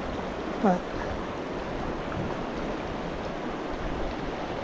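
Steady rush of a mountain river's flowing water, an even noise with no breaks.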